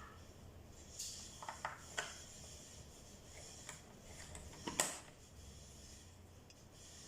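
Light clicks and taps of a plastic battery compartment cover being handled and fitted onto a battery-powered toy RC truck: a handful of sharp clicks, the loudest about five seconds in.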